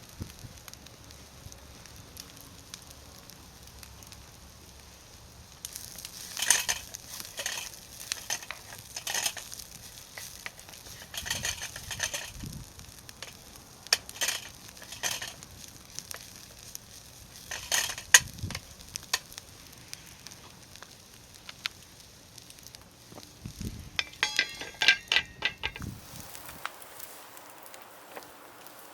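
Food sizzling in an aluminium skillet over a wood fire while it is stirred, the utensil scraping and tapping against the pan in irregular strokes, with a quick run of strokes near the end.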